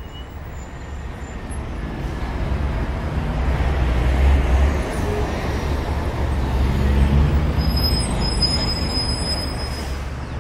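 Steady low rumbling noise that builds over the first couple of seconds and stays loud, with faint high whistling tones near the end.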